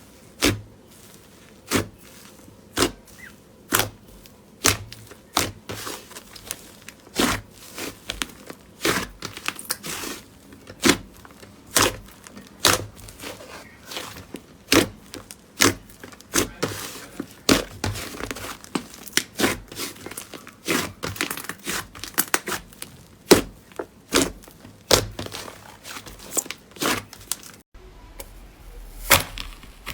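Slime being pressed and stretched by hand, giving sharp pops and crackles about once a second at first, then faster and denser, as trapped air bursts. The background changes suddenly near the end, likely at a cut to another clip.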